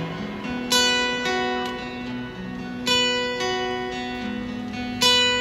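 Acoustic guitar playing slow chords, with a strong chord struck about every two seconds and single notes ringing in between.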